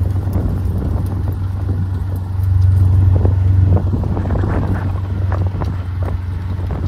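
Vehicle engine running steadily at low speed, a constant low hum that swells slightly for about a second near the middle.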